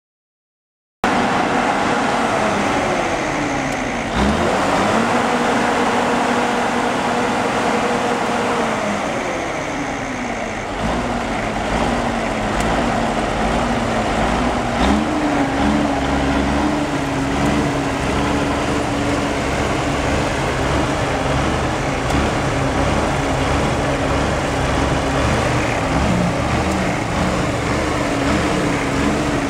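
Cummins Big Cam six-cylinder diesel engine of a 1977 Versatile 850 4WD tractor running, cutting in about a second in. Its speed drops, climbs sharply a few seconds later, eases back down around ten seconds, then rises again about halfway through and holds there.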